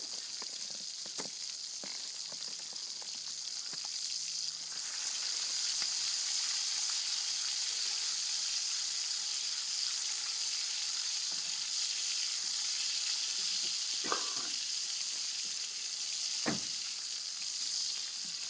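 Food frying in a pan: a steady sizzle that grows louder about four and a half seconds in and holds, with a few faint clicks.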